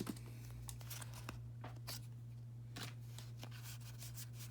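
Faint rustles and light clicks of Pokémon trading cards being handled and slid through the hands, a few soft ticks spread through, over a steady low hum.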